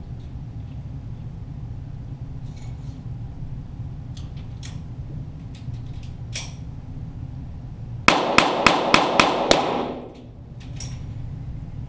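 .22 pistol gunfire at an indoor range heard from near the target: a few faint, scattered shots, then about eight seconds in a rapid string of about six shots, roughly five a second, over a steady low hum.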